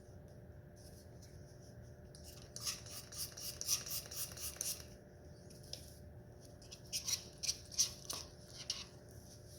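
Sticky metallic-glue slime being stirred and worked with activator in a small container: two spells of quick scratchy strokes, each a couple of seconds long, the first a few seconds in and the second near the end.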